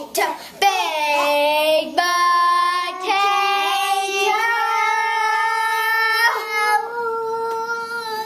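A child singing a few long, drawn-out notes without accompaniment, the first sliding downward and a long one held for about three seconds in the middle.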